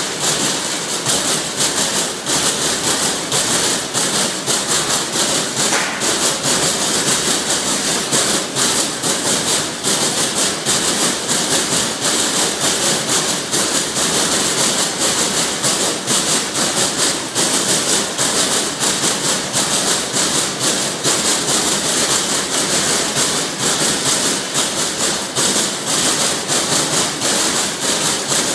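Trumpf TruPunch CNC punching machine punching slots and holes in a copper sheet: a rapid, unbroken series of sharp punch strokes.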